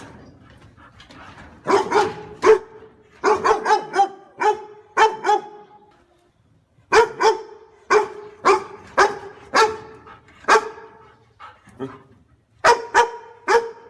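A dog barking repeatedly: sharp, fairly high barks in quick runs of several at a time, with a short pause about halfway through.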